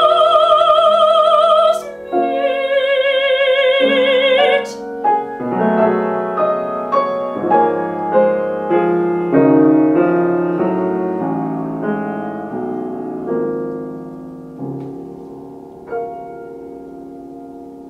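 A trained female classical voice holds two final sung notes with a wide vibrato over piano accompaniment, the second ending about four and a half seconds in. The piano then plays a postlude of notes and chords alone that fade away, with a last soft chord near the end.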